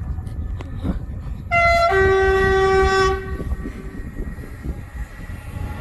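A Greater Anglia train's two-tone horn, sounded once about a second and a half in: a short higher note drops straight to a longer lower note, about a second and a half in all. It plays over the low rumble of the train.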